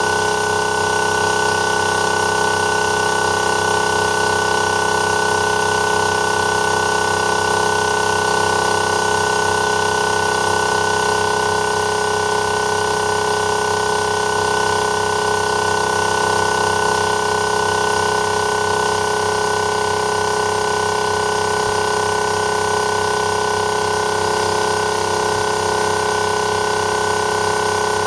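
TWO STAR HT25L-15A 12 V DC reciprocating-piston air compressor running steadily under load, with an even drone that holds one pitch throughout. It is late in filling its air tank, working against a pressure of about 7 to 8 kg/cm².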